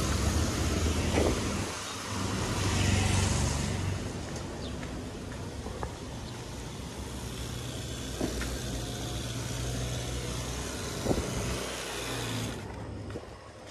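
Street traffic: a motor vehicle passing close by, its engine hum and tyre noise loudest in the first few seconds, then fading into a lower steady traffic background with a few faint knocks.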